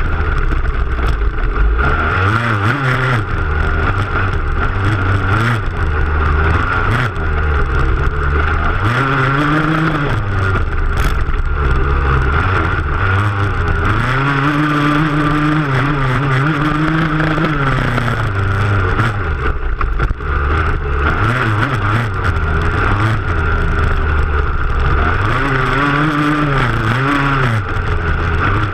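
Dirt bike engine revving up and dropping back again and again as the bike is ridden hard over a rough stubble-field track, heard close up from a camera on the rear fender.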